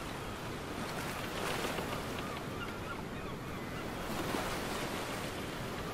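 Ocean surf sound effect: a steady wash of noise that swells slightly a couple of times.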